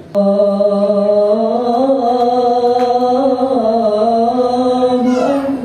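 A young man's solo chanting voice through a microphone, one long melodic phrase of held, slowly wavering notes. It climbs a little about two seconds in and breaks off just before the end.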